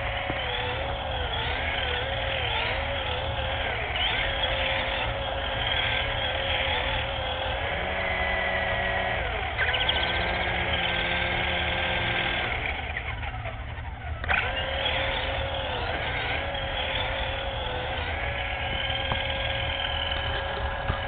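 Small electric motor and rotors of a Black Cat 3-channel RC helicopter running with a steady whine, its pitch wavering slightly, while the helicopter barely lifts off the ground. About 13 seconds in the whine dies down, then it spins back up a second later.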